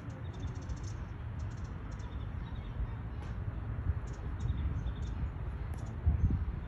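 Outdoor ambience: a low, uneven rumble on the phone's microphone, with a louder bump near the end and faint, short, high chirps recurring throughout.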